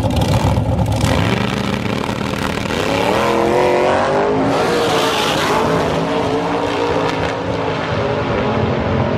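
Drag racing cars running loud at the start line, one launching and accelerating hard down the strip, its engine note rising and then fading away.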